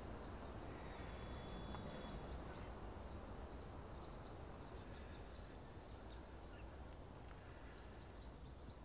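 Faint woodland ambience: a steady low rumble of air and distant noise, with scattered faint, high bird chirps. It eases off slightly toward the end.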